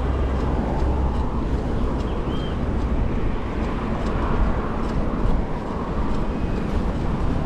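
Wind rushing over the microphone of a moving bicycle, a steady low rumble, with road and traffic noise mixed in.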